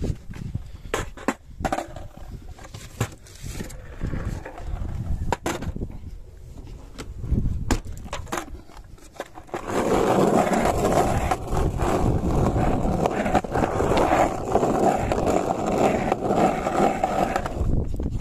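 Scattered knocks and clatter as things are handled in a car's hatchback boot, then, about ten seconds in, skateboard wheels rolling on rough asphalt, a steady loud rumble that stops near the end.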